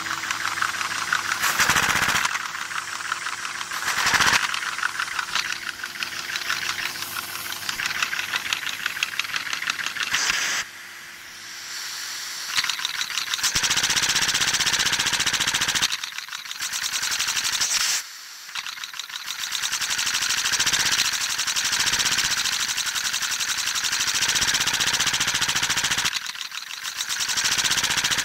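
LEGO butterfly engine running on gas: a fast clatter with hissing exhaust. It drops out briefly about eleven seconds in and again near eighteen seconds, then picks up again.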